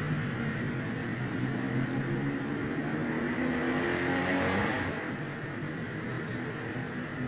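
A motor vehicle's engine running nearby, swelling about four seconds in and dropping off just before five seconds.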